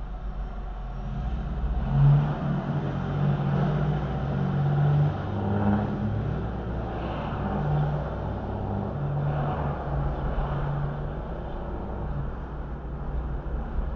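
Car engine and tyre noise heard from inside the cabin as the car pulls away from a crawl and speeds up.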